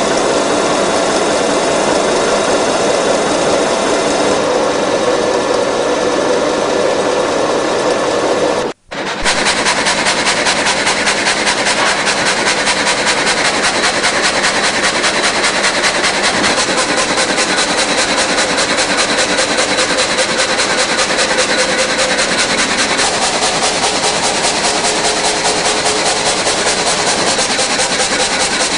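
Multi-blade rip saw machine running loudly and steadily, with a brief break about nine seconds in.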